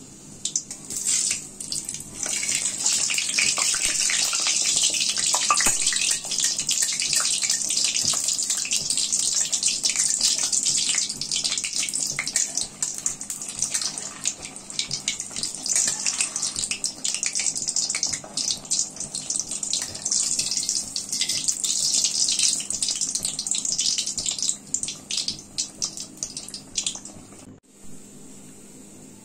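Malpua batter deep-frying in hot refined vegetable oil in a wok: a loud, crackling sizzle that starts suddenly about a second in and dies away near the end.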